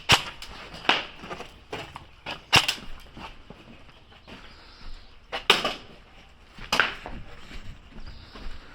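Airsoft guns firing single shots: five loud, sharp cracks at irregular spacing, with smaller clicks and knocks between them.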